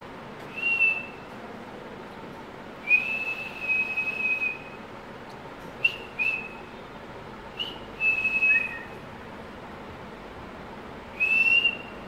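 A series of about seven clear whistled notes, mostly on one steady high pitch. Some are short, one is held for nearly two seconds, and one drops to a lower note.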